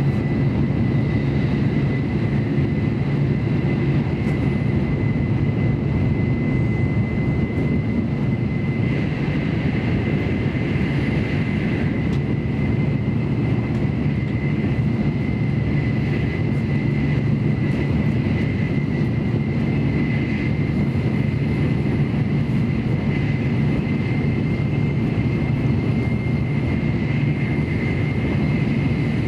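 Steady running noise of an N700A Shinkansen at speed, heard inside the passenger cabin: a dense low rumble and rush, with a thin steady high tone over it.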